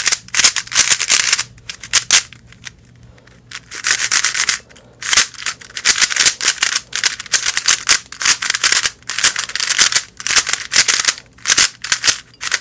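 MoYu AoLong V1 3x3 speed cube being turned in quick runs of moves, its plastic layers sliding with a scratchy rasp, with a pause of about two seconds shortly after the start. The scratchiness is the sign of a dry, unlubricated cube straight out of the box.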